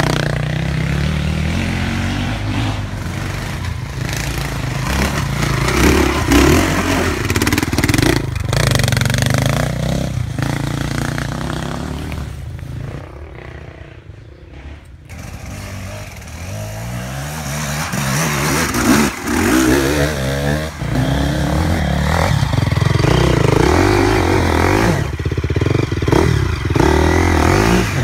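KTM dirt bike engines revving hard and easing off, the pitch rising and falling. The engine sound fades to quieter about halfway through, then comes back loud.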